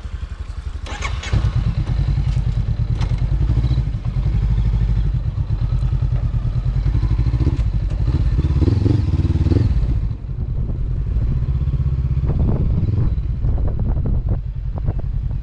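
Honda CB500X motorcycle's parallel-twin engine running as the bike rides along, getting louder about a second in as it pulls away. About ten seconds in the hissy upper part of the noise drops away.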